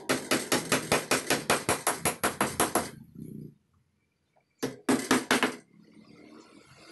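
Claw hammer tapping rapidly on a wooden furniture frame, about six blows a second for roughly three seconds, then after a pause a second short run of about five blows.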